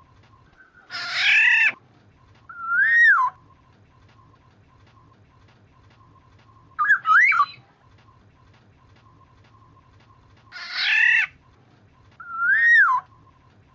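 Black-naped oriole calls from a bird-lure recording: a harsh nasal call followed by a fluty whistle that rises and then drops, a quick double note, then the harsh call and the whistle again. A faint steady tone and low hum run underneath.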